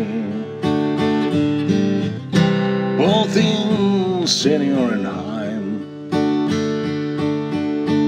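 A song: strummed acoustic guitar chords, with a voice singing a bending melody line from about three to six seconds in.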